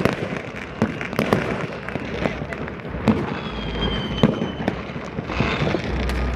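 Many fireworks and firecrackers going off across a city at New Year: irregular, overlapping bangs and pops of varying strength, with a brief high whistle about halfway through.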